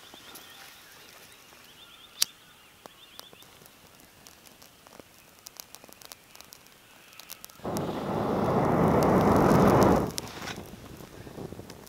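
Person blowing hard on the embers of a campfire to get it going, a loud rush of breath lasting about two and a half seconds that cuts off suddenly near the end. Before it, small snaps and crackles of dry twigs being laid on the coals.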